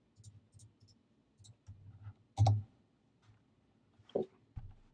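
Scattered clicks of a computer mouse and keyboard keys while a command is copied and pasted. A few light clicks come in the first two seconds, then a louder knock about two and a half seconds in and another just after four seconds.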